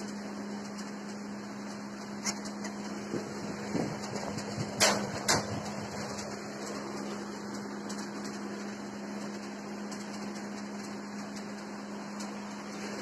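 A steady low hum, with a few short knocks and clicks between about two and five seconds in, the loudest two close together near five seconds.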